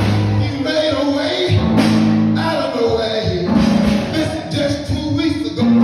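A man's preaching voice, sung and chanted into a microphone in held notes that break off about every second, over church band music.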